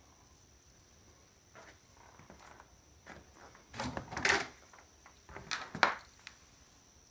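Clattering and scraping of metal and plastic parts being handled while an old computer device is dismantled, with two louder bursts of clatter about four and six seconds in.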